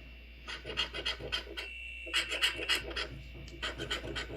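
Coin or scraper scratching the latex coating off a scratch-off lottery ticket in quick repeated strokes, with a short pause about two seconds in.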